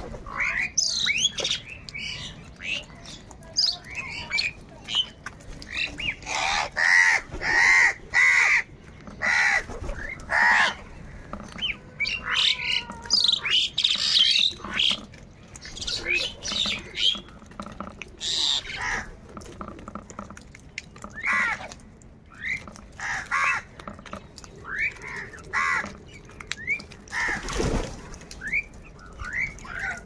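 A flock of house crows cawing over food: harsh, short calls from many birds, overlapping and following one another in quick succession.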